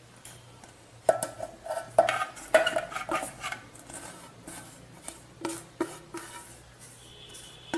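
Stainless steel bowl clinking and scraping against a stainless steel mixer-grinder jar as damp rice flour is tipped and scraped in. A run of metal knocks with short ringing comes about one to three seconds in, followed by a few lighter clicks.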